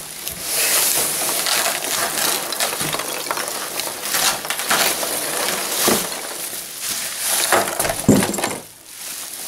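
Polystyrene packing peanuts rustling, crunching and spilling as a long cardboard box is pulled out of a packed shipping carton, with plastic wrap crinkling.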